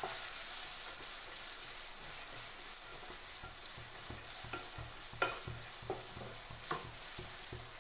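Chopped onions and whole green chillies sizzling in hot oil in a kadai as they are stirred with a wooden spatula, with a few light taps and scrapes of the spatula on the pan in the second half.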